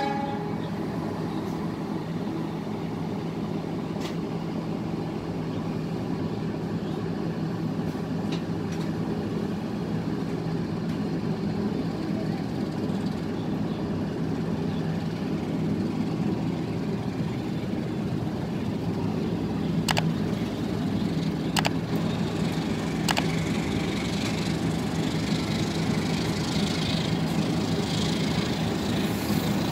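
Steady low hum of a standing train's diesel engine running, slowly growing a little louder, with three short sharp clicks about two-thirds of the way in.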